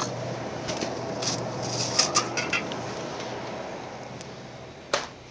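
Small glass drink bottles clinking and rattling as they are taken from a refrigerated cooler shelf, over the steady low hum of the store's refrigerated display cases. A single sharp knock comes near the end.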